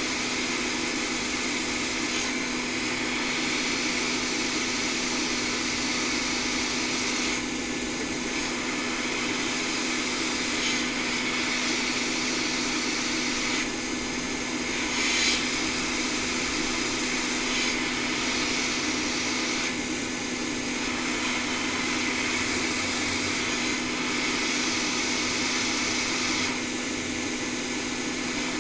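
Hot air rework station blowing steadily, a constant rush of air over a low hum, its hiss changing a little every few seconds.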